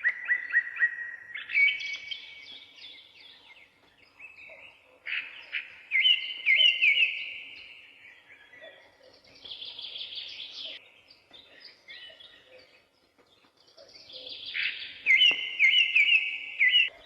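Songbird singing: about five phrases of quick, repeated high chirping notes, each a second or two long, with short pauses between.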